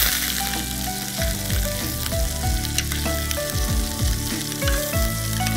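Oil and pan juices left from searing chicken thighs sizzling steadily in a frying pan, under background music with a beat and short melody notes.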